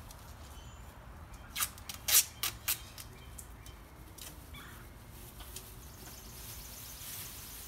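Aerosol spray-paint can sprayed in four short, sharp hissing bursts about two seconds in, painting a brake rotor gloss apple red.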